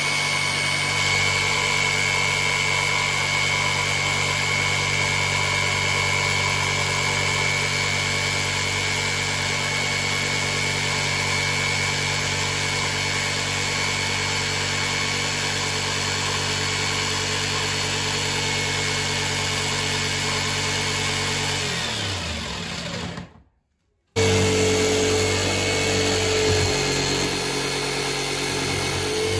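Corded electric jigsaw cutting through a wooden butcher-block countertop, its motor running steadily. About 22 seconds in the motor winds down and stops, and after a brief break the saw runs again.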